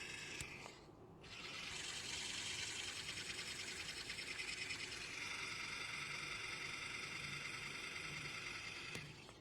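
A steady hissing noise that drops out briefly about a second in, then runs on evenly until it fades near the end.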